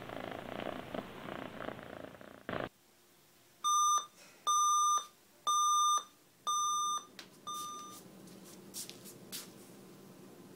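A cat purring close by, stopping suddenly about two and a half seconds in. Then a digital alarm clock beeping: four steady high beeps about a second apart and a short fifth one, cut off as the alarm is stopped.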